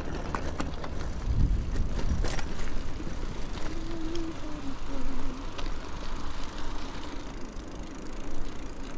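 Wind rushing over the microphone and the rumble of a bicycle rolling downhill on a paved road, with scattered light clicks and rattles.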